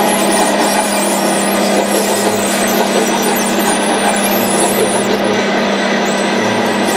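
Radio-controlled crawler bulldozer running steadily as it moves along on its tracks, an even mechanical drone with a constant hum.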